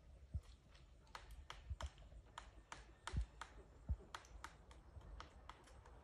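Pileated woodpecker hammering into a dead birch branch: single knocks at an irregular pace, about two or three a second, not a drumming roll. Two heavier thuds come a little past the middle.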